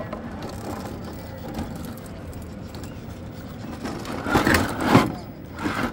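Scale RC rock-crawler truck climbing a near-vertical rock face. Its tyres and body scrape and crunch loudly against the rock in two rough spells about four and five seconds in.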